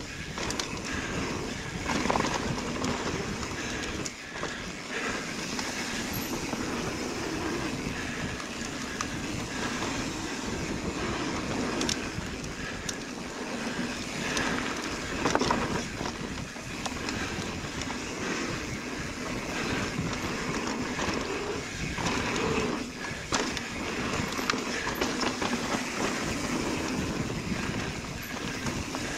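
Mountain bike descending a dirt trail at speed: steady tyre noise on the dirt with the bike rattling and knocking over bumps, and a few harder jolts, one about two seconds in and a louder one near the middle.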